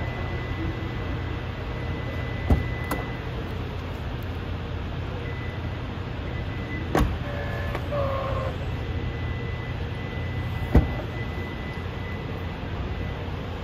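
A steady low hum with three sharp clicks or knocks, about two and a half, seven and eleven seconds in, and a short two-note chirp about eight seconds in.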